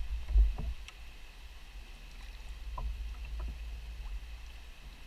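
Kayak moving over calm river water: a low steady rumble with a few faint, brief drips and splashes from the paddle.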